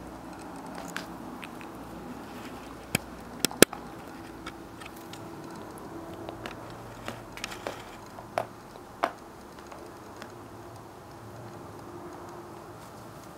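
Basset hound puppy chewing a dried cow ear: irregular crunching with sharp cracks, the loudest a pair a few seconds in and several more through the middle.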